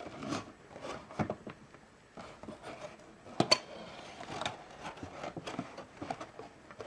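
Hands opening and handling a folding cardboard box: soft scraping and rustling of cardboard with scattered light taps, and a sharp double click about halfway through.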